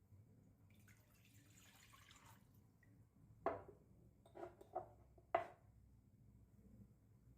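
Quiet room with a faint rustle, then four short, sharp taps between about three and a half and five and a half seconds in, the last the loudest.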